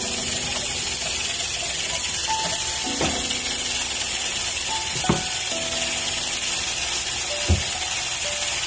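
Steady steam hiss and sizzling from the stovetop, where string beans and potatoes are stir-frying in a frying pan next to a pressure cooker under pressure. A spatula knocks against the pan three times.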